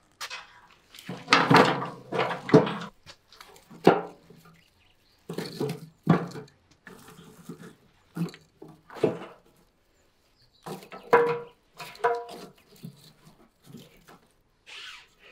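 Dry twigs and sticks crunching, rustling and knocking as they are piled by hand into a metal box grill. The noise comes in uneven bursts, some with a brief metallic ring from the grill's steel sides.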